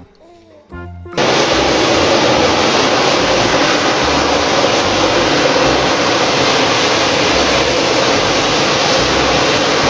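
Fighter jet engine sound effect: a loud, steady rushing noise that starts abruptly about a second in and holds without change.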